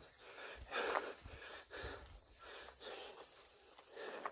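A cyclist panting hard in quick, even breaths, about two a second, while pedalling up a steep climb, out of breath from the effort.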